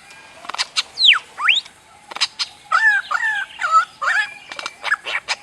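A bird calling in a varied run of sounds: sharp clicks, a whistle sliding steeply down and then one sliding up, then a quick string of short warbling notes mixed with more clicks.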